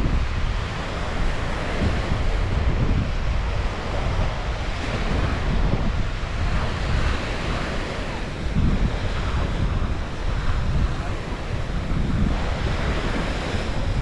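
Wind buffeting the microphone in an uneven low rumble, over the steady wash of small waves breaking on a sandy beach.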